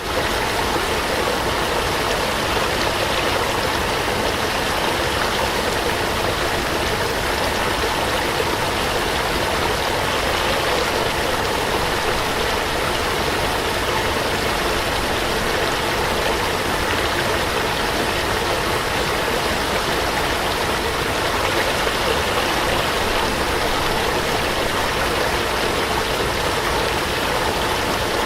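Small waterfall: water pouring and splashing in a steady, unbroken rush.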